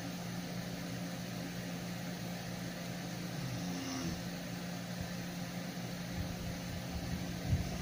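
Steady whirring hum of a cooling fan, with a low steady tone under it.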